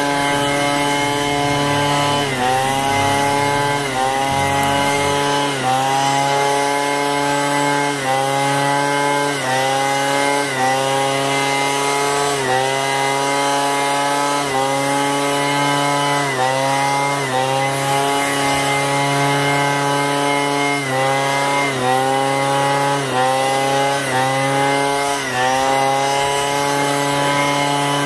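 Small gasoline engine on lawn equipment cutting tall grass. Its pitch drops under load and recovers over and over, about every one to two seconds.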